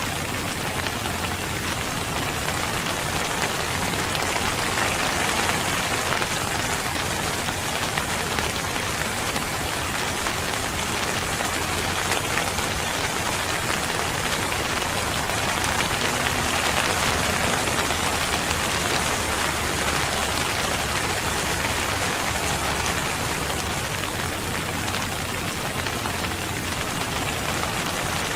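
Steady rain falling, an even hiss of drops that holds the same level throughout.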